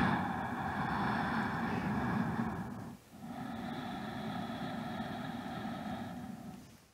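Ujjayi (ocean) breathing through the nostrils with the throat slightly constricted: a long rushing inhale, a brief pause about three seconds in, then a quieter exhale of about the same length.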